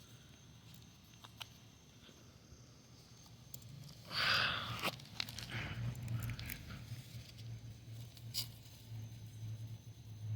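Rustling and crunching, as of dry leaves or grass being trodden or pushed through, with a louder burst about four seconds in and scattered crackles after it. A low steady hum runs underneath.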